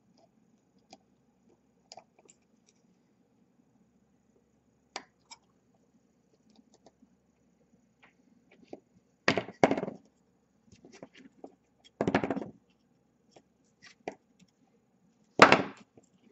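Scattered small clicks and handling noises of hands and needle-nose pliers working on a drone's brushless motor, with three louder noisy bursts about nine, twelve and fifteen seconds in.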